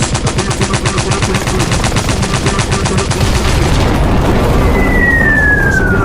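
Rapid machine-gun fire sound effect, about ten shots a second, easing off after a few seconds. It is followed near the end by a single whistle falling in pitch, like an incoming bomb or shell.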